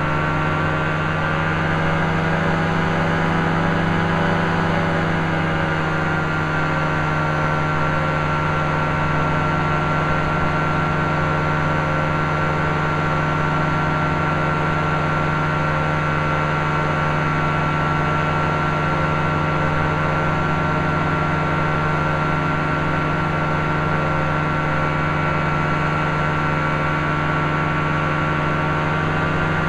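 SixChuter SR2cl powered parachute's engine and propeller droning steadily in flight, heard from on board; the pitch eases down slightly about five seconds in, then holds even.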